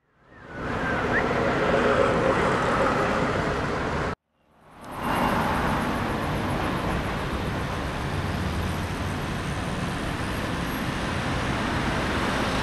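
City road traffic: a steady wash of cars passing. The sound drops out at the start and again about four seconds in, each time fading back up.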